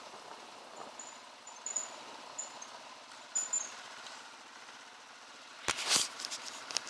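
Dirt bike engine running quietly at low revs as the bike rolls slowly, with a few short high squeaks in the middle. Near the end come loud knocks and rubbing as a gloved hand handles the camera.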